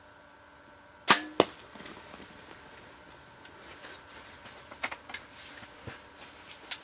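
Bow being shot at a deer: a sharp crack of the string's release about a second in, then a second crack about a third of a second later as the arrow strikes, followed by fainter scattered clicks.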